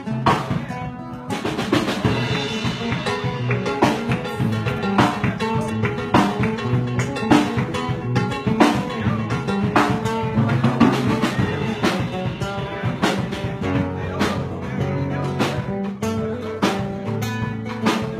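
Drum kit played live in a band, with a steady run of kick, snare and cymbal strikes over guitar.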